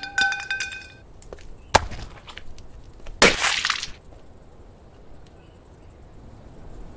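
A ringing, clattering sound with rapid ticks in the first second. Then two sharp impacts, about two and three seconds in, the second louder with a short ragged tail, followed by quiet.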